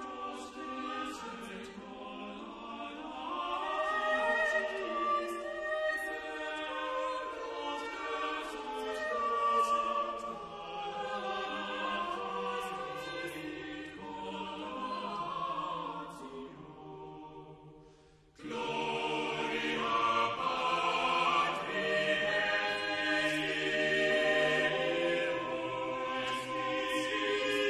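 Background choral music, many voices holding sustained notes in harmony. About two-thirds through it fades away, and after a brief gap a new choral passage starts abruptly.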